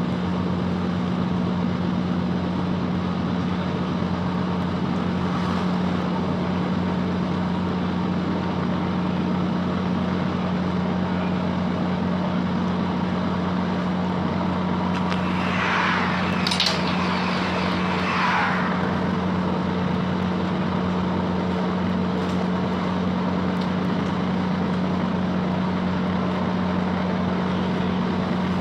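Class 165 diesel multiple unit heard from inside the carriage while running at steady speed: a constant low diesel drone and hum, with wheel-on-rail noise. About halfway through, a brief louder screech and rush lasts two or three seconds.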